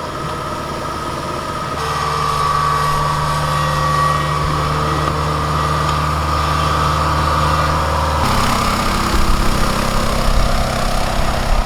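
Engine running steadily, its sound changing abruptly about two seconds in and again about eight seconds in.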